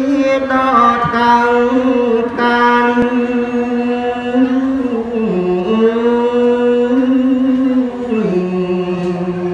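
A male voice sings Khmer Smot, unaccompanied Buddhist chanted verse, into a microphone in long held notes with wavering ornaments. The pitch dips about halfway through and settles on a lower held note near the end.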